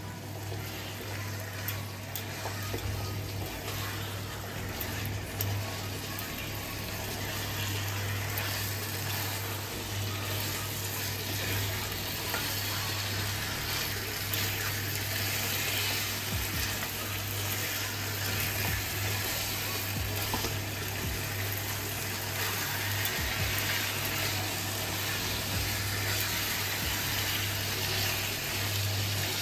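Chicken pieces sizzling as they fry in a spiced onion, ginger and garlic masala in a nonstick pan, while a silicone spatula stirs them to brown them in the spices. The sizzle grows a little louder over the first several seconds, over a steady low hum.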